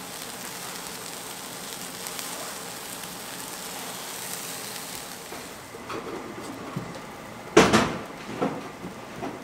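Food sizzling on a flat-top griddle, a steady hiss that thins about five and a half seconds in. Near the end there is a loud sudden clatter, followed by two smaller knocks.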